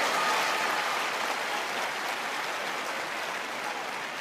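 Tennis crowd applauding the end of a point, loudest at the start and slowly dying away.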